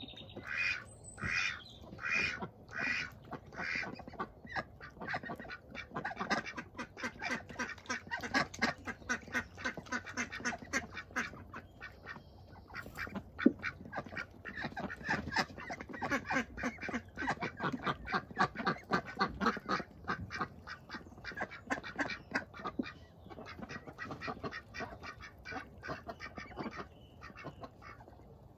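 Domestic ducks, Indian Runners among them, quacking: about five loud, spaced quacks at the start, then a long run of quick, closely repeated quacks. There is a single sharp click about halfway through.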